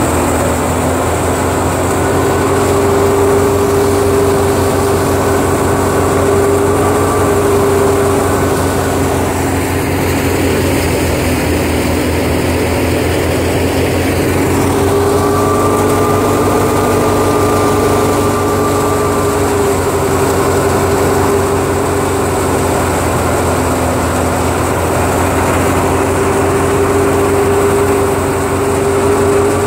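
Tractor-driven wheat thresher running steadily while wheat is fed in: a loud, continuous mechanical drone with a constant low hum. For a few seconds in the middle the hum drops back and a rushing hiss comes up.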